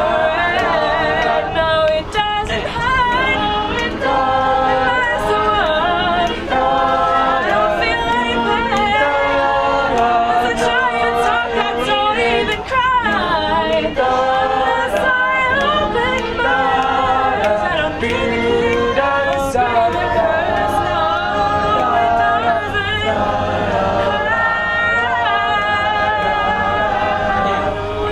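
A cappella choir of teenage voices singing in close harmony, with a steady low hum underneath.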